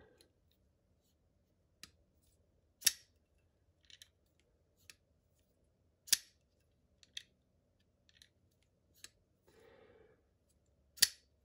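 Vero Engineering Impulse folding knife with titanium handles being worked open and shut. Its blade and lock give sharp metallic snaps, three loud ones a few seconds apart, with fainter clicks in between.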